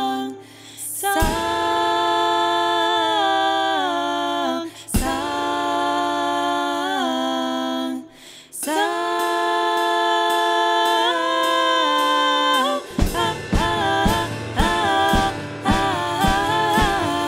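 Wordless female singing in three long, held phrases with gliding pitch. About thirteen seconds in, a quicker rhythmic passage of short struck notes begins.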